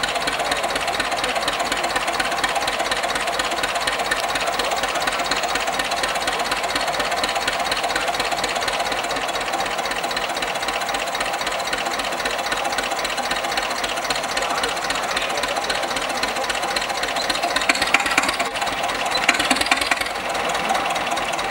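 Old Hanomag tractor engine idling steadily with a fast, even knocking beat. A couple of brief louder noises rise over it near the end.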